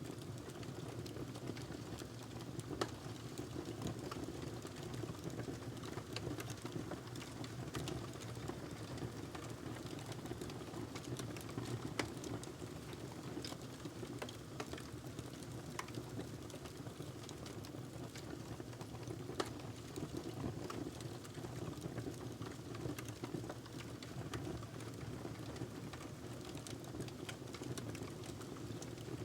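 Wood fire crackling in a fireplace: a steady low rumble of flames with irregular sharp pops and snaps, a few louder ones scattered through.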